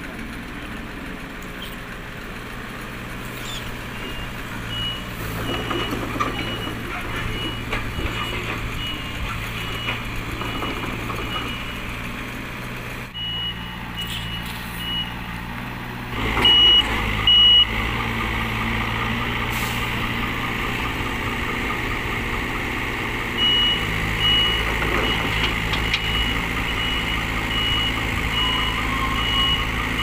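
Komatsu PC58UU mini excavator's diesel engine running steadily while the machine travels on its tracks, with its travel alarm beeping in an even rhythm over it. The beeps stop and start a few times and come back louder partway through.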